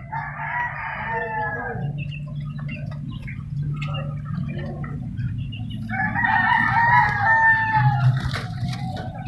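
A rooster crowing twice, each crow about two seconds long: one right at the start, one about six seconds in.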